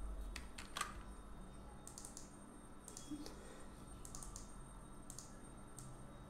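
Faint computer keyboard keystrokes and mouse clicks, a dozen or so short clicks scattered irregularly, some in quick little runs.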